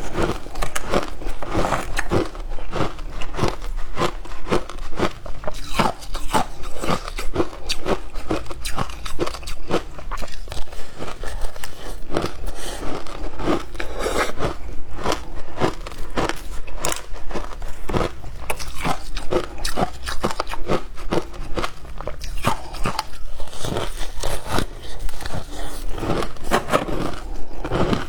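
Frozen passion fruit ice being bitten and chewed close to the microphone: a continuous, rapid run of crisp crunches.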